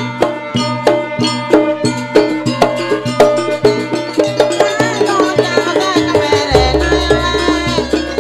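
Jaranan percussion ensemble playing live: drums and tuned metal gongs strike a quick, steady beat. A wavering high melody joins about halfway, and a deep, sustained gong-like boom comes in near the end.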